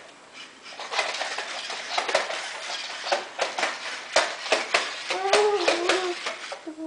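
Sony Aibo ERS-210 robot dog walking on a hard floor: irregular clicks and taps from its plastic feet and joint motors. About five seconds in, a short wavering electronic tone sounds.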